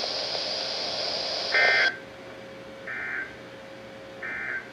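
Weather-radio hiss that cuts off about two seconds in, followed by three short, identical warbling data bursts about a second and a half apart. These are the EAS/SAME end-of-message tones, which mark the close of the alert broadcast.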